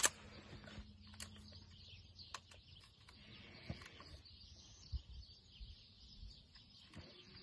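A single sharp click right at the start, then quiet outdoor ambience with faint bird chirps and a few small scattered ticks.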